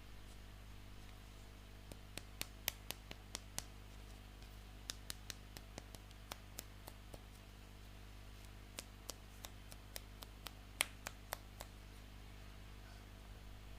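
Hard plastic toy pieces being handled, giving light clicks and taps in three short runs over a steady low hum.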